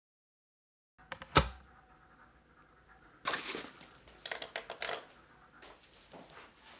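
Digital silence for about a second, then a single sharp knock, followed a couple of seconds later by a string of footsteps and clothing rustle as a person walks across a small room.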